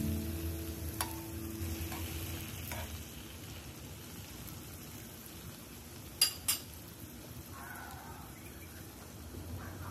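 Cabbage wedges sizzling in a bubbling garlic sauce in a nonstick pan, while a small metal measuring spoon scoops and bastes the sauce over them. The spoon clicks against the pan a few times; two sharp taps about six seconds in are the loudest.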